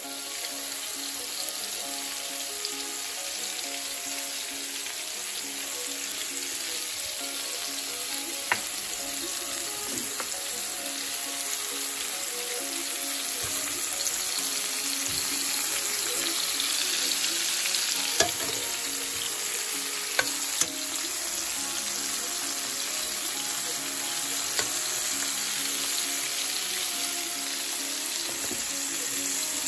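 Tiger shrimp sizzling steadily in butter and oil in a frying pan, with a few sharp clicks of a utensil against the pan.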